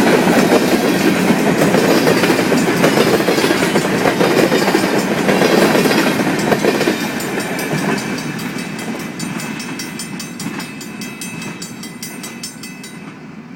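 CN intermodal freight train's cars rolling past, steel wheels clattering on the rails. The noise fades steadily from about halfway through, leaving an even, rapid clicking of wheels over rail joints as the train moves away.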